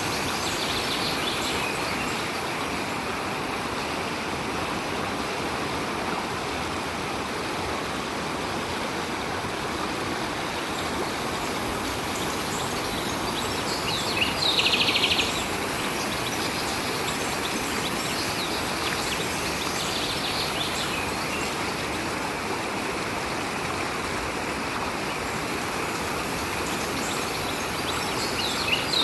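Stream water flowing steadily. Over it, a few brief bursts of rapid, high bird chirping, the loudest about halfway through.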